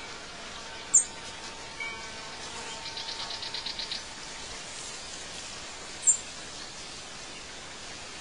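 Outdoor birdsong ambience over a steady hiss: a sharp high chirp about a second in and another near six seconds, a shorter call near two seconds, and a rapid trill of repeated notes around three to four seconds in.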